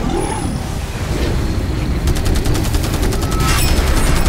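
Cartoon storm sound effects: a loud low rumble of tornado wind, joined about halfway through by a fast, even rattling clatter like machine-gun fire.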